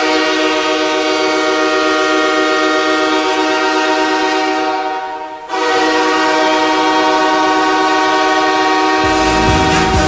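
Ice hockey arena goal horn sounding two long blasts, each about five seconds, with a short break between them. Music with a heavy beat starts under the second blast near the end.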